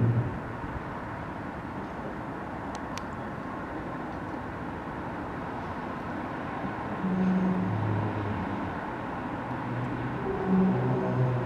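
The unexplained low 'Earth's Voice' roar, a mysterious sound heard from the sky: deep droning tones, each held about half a second to a second and stepping between a higher and a lower pitch. They come about seven seconds in and again near the end, over a steady outdoor background rush.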